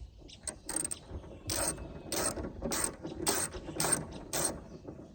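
Socket ratchet on an extension clicking in even back-swings, about two strokes a second, while turning out a 10 mm bolt on a car door handle.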